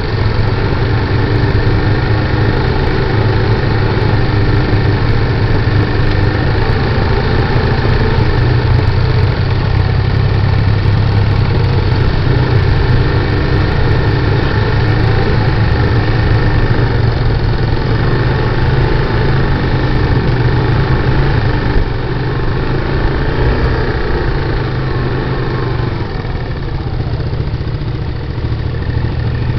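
Honda ATV engine running steadily close to the microphone, with a small dip in loudness about three-quarters of the way through.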